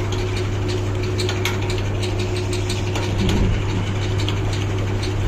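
Hand tools working on a seized Bajaj CT 110 engine as the cylinder is taken off: scattered irregular metallic clicks over a steady low machine hum.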